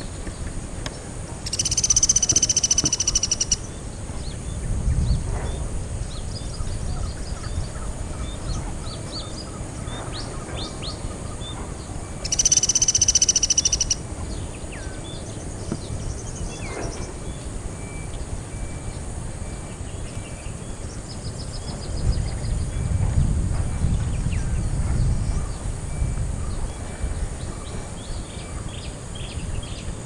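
Sunda pygmy woodpecker giving a high, buzzy trilling call twice, each about two seconds long and some ten seconds apart.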